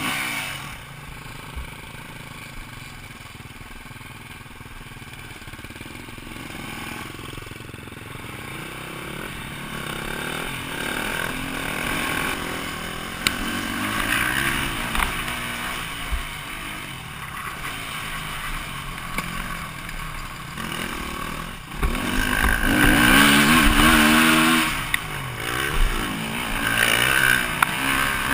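KTM EXC-F 250 single-cylinder four-stroke dirt-bike engine, heard from the rider's helmet: it runs low and fairly quiet at first, then revs up and down as the bike rides along the track. It is loudest in a stretch of hard revving near the end.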